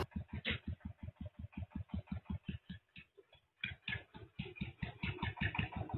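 Small farm tractor's single-cylinder diesel engine idling, a steady chugging of about six or seven beats a second, with a short break about three seconds in.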